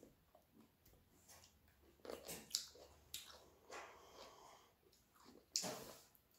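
Soft chewing and mouth sounds of kiwi berries being eaten, with small clicks and scattered handling noises. A sharper click comes near the end.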